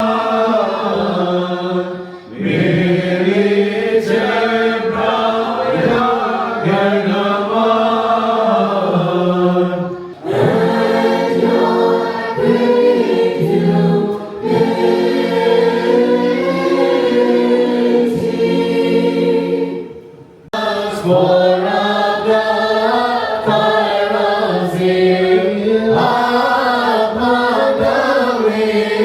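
A choir singing an Indian Orthodox liturgical chant in long, slow phrases, with short breaks between them.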